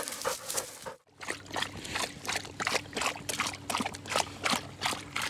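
A dog lapping water from a concrete trough, about three laps a second, with a faint steady hum under it. For the first second, before it, a dog pants.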